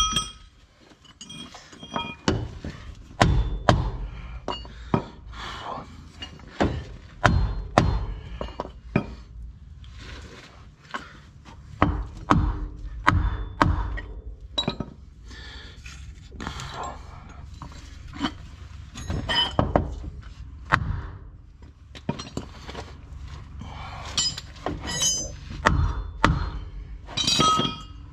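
Hand tools working on steering parts: irregular metal knocks and thuds with short clinks, dozens of them at uneven spacing, as a new tie rod end is fitted.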